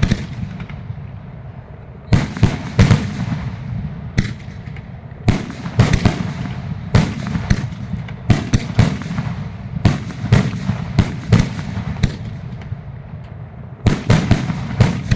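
Fireworks going off: an irregular run of sharp bangs, bunched in quick clusters with short lulls between them.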